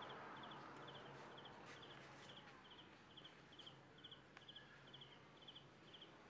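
Faint insect chirping: short high chirps of two or three quick pulses each, repeating evenly about two and a half times a second. There is a single faint click a little after four seconds in.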